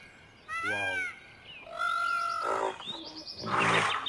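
A run of animal calls: a short call that bends up and down in pitch, then a held, steady high call, then a louder, rough call near the end.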